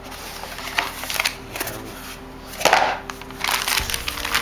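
Handling of a cardboard kit box and the plastic bag of wooden parts inside it: rustling with several light taps and knocks, the loudest about two-thirds of the way through.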